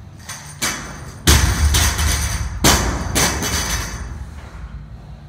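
Loaded 45 kg barbells with bumper plates coming down onto a rubber gym floor: a lighter knock about half a second in, a heavy thump with a low rumble about a second in, then two more thumps around three seconds in, with some clatter of the plates on the bar.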